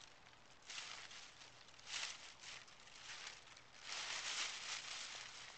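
Dry fallen leaves rustling as a black Labrador puppy shifts about in a leaf pile, in short bursts about a second in and around two seconds in, then a longer stretch from about four seconds in.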